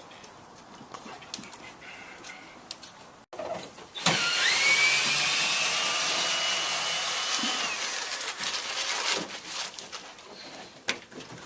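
A handheld power tool's motor spins up quickly, runs steadily for about four seconds with a high whine, and winds down, amid scattered knocks and clicks of demolition work on wooden model railroad benchwork.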